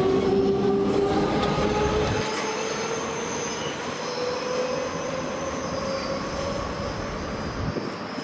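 Hamburg S-Bahn electric multiple unit pulling away around a curve: the wheels squeal in several high, gliding tones over the rumble of the train. It is loudest at first, then fades after about two seconds as the train recedes.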